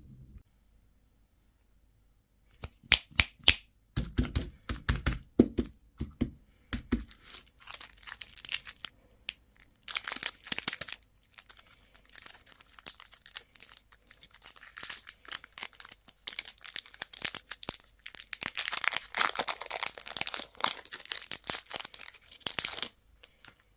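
Candy and toy packaging being opened by hand: a run of sharp clicks and knocks, then a wrapper being torn and crinkled in bursts, densest near the end.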